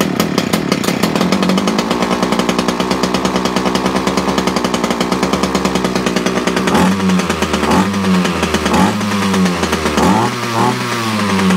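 Titan two-stroke strimmer engine running steadily at idle on its first start after winter storage, then revved in several short bursts from about seven seconds in.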